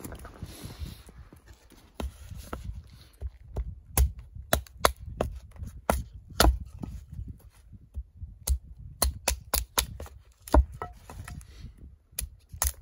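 Hatchet splitting kindling on a wooden chopping block: after a few seconds of quieter handling, a run of sharp wooden knocks, two or three a second and unevenly spaced, as the blade strikes the sticks and the block.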